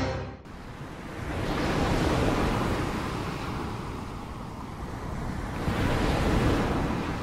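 Sea surf breaking and washing up a beach, a steady rush that swells twice, about two seconds in and again about six seconds in.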